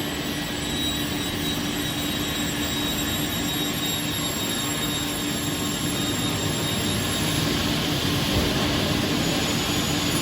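Steady machine noise from a CNC panel beam saw running, with a constant low hum and a thin high whine over a broad rush of noise.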